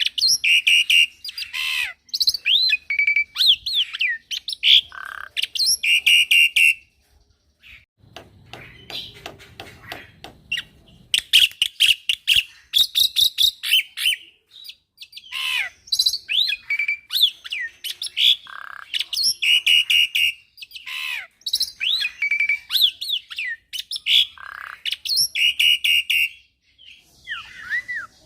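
Young black-winged myna (jalak putih) singing a fast, varied song of chirps, whistled glides and harsh squawky notes in bursts. It breaks off for a few seconds about a third of the way in, then resumes.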